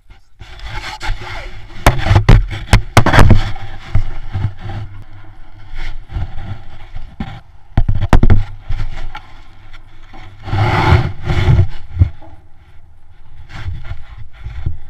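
Close scraping, rubbing and sharp knocks of handling noise right at the microphone, as climbers shift and handle rope on the concrete tower top. The loudest knocks come in a cluster about two to three seconds in, with more around eight and eleven seconds.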